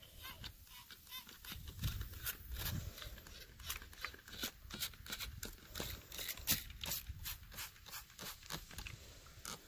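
Plastic trigger spray bottle squirting bleach in a quick, uneven series of short spritzes, about two a second.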